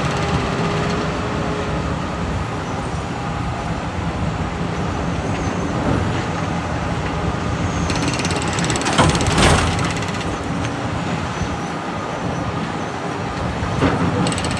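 Heavy construction equipment running: steady engine noise with mechanical clanking and rattling, and a louder burst about nine seconds in.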